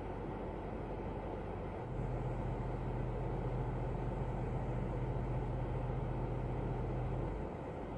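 Steady low rumbling noise inside a car cabin. A low steady hum comes in about two seconds in and stops about a second before the end.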